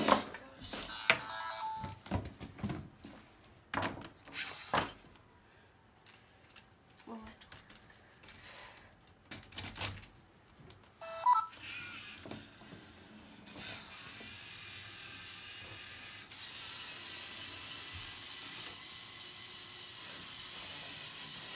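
Sharp knocks and clacks of plastic LEGO robot parts as attachments are handled and swapped, then a steady whirring as the LEGO robot runs across the field for the last few seconds.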